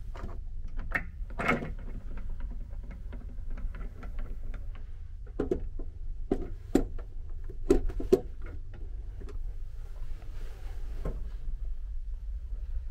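Knocks, clicks and rustling from climbing into a plastic capsule-hotel sleeping pod, with the loudest knocks around the middle, over a steady low hum.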